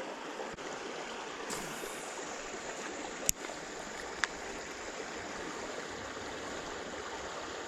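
Steady rush of running creek water, with two short sharp clicks about three and four seconds in.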